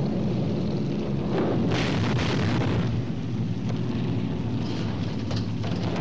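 Steady drone of a four-engine bomber's piston engines, with a few explosion blasts over it, the loudest about two seconds in.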